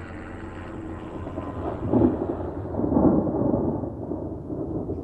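Thunder rumbling low and deep, swelling about two seconds in and again about a second later.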